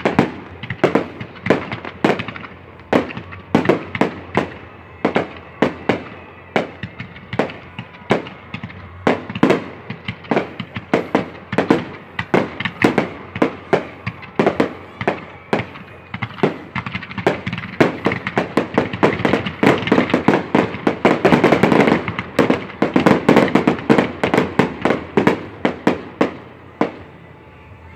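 Aerial fireworks shells bursting one after another, sharp bangs and crackles in quick succession. Around two-thirds of the way through they build into a dense, nearly continuous barrage of bursts, which stops abruptly about a second before the end.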